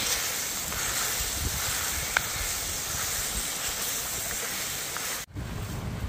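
Chicken in chili sauce sizzling steadily in a cast-iron pan while wooden spatulas stir it, with one sharp click about two seconds in. The sound cuts off briefly about five seconds in and gives way to wind rumbling on the microphone.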